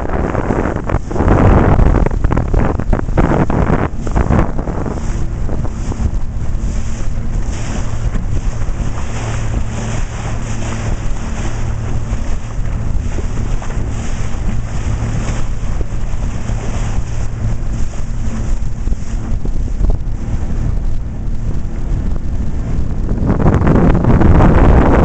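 Pontoon boat under way, its motor humming steadily while water splashes and hisses along the hull. Wind buffets the microphone, heaviest near the start and again near the end.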